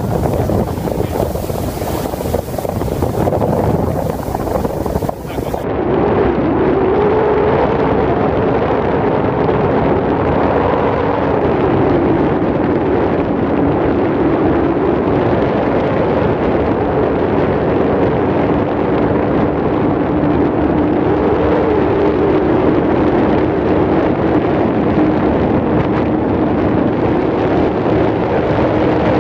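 Mercury 100 hp two-stroke outboard running at speed on a planing speedboat, with wind rushing over the microphone and water rushing under the hull. The wind rush is heaviest for the first several seconds. About six seconds in it eases, and the engine's steady, slightly wavering note stands out.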